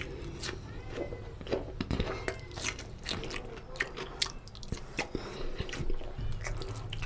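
Close-miked eating: crunchy bites of a raw onion slice and wet chewing of rice with mutton curry, full of short crackling clicks.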